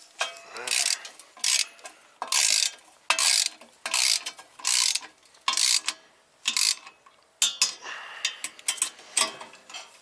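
Torque wrench's ratchet head with a 17 mm socket on an extension, ratcheting in short repeated strokes a little more than once a second as nuts are tightened to 44 ft-lb.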